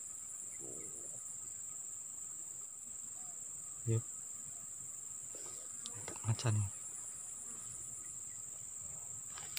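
Steady high-pitched insect chorus, a constant drone, with a short thump about four seconds in.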